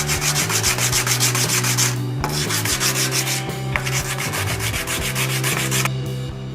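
Sanding the edge of a plexiglass window panel to trim it to fit, in rapid, even scraping strokes that pause briefly about two seconds in and stop near the end.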